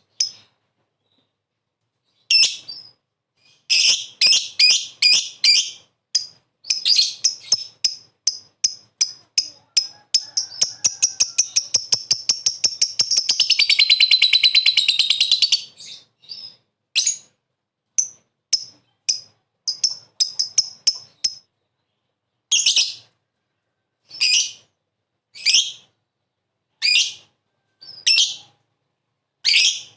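Lovebird giving shrill, high-pitched calls that quicken into a long, rapid chattering trill (the 'ngekek'). The trill runs for several seconds, then breaks back into single calls about one every second and a half.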